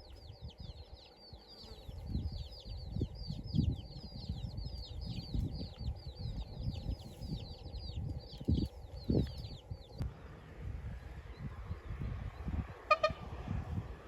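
A bird calling in a rapid run of high falling chirps, about four or five a second, which cuts off abruptly about ten seconds in. Irregular low thumps run underneath, and a short call sounds once near the end.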